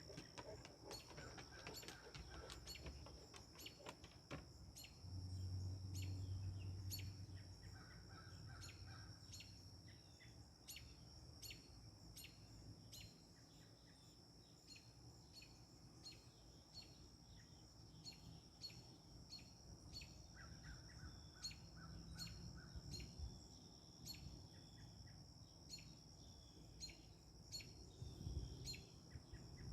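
Faint backyard birds chirping: a steady run of short high chirps, with a few groups of lower calls, over a constant high-pitched hum. Wind rumbles on the microphone for a few seconds near the start.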